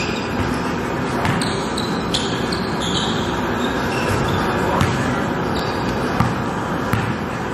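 Basketball bouncing on an indoor gym floor, irregular sharp thuds that echo in the large hall.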